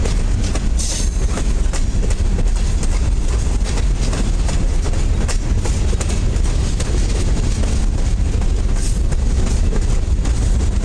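Freight cars (covered hoppers and gondolas) rolling past close by: a steady low rumble of steel wheels on rail, with irregular clicks as the wheels cross rail joints.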